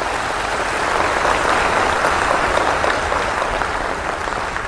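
Large audience applauding, the clapping swelling in at the start, strongest in the first couple of seconds, then slowly dying away.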